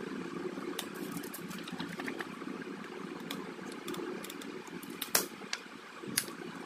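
Plastic phone parts being handled and pressed: scattered light clicks and taps, then two sharper clicks in the last couple of seconds, over a steady low background hum.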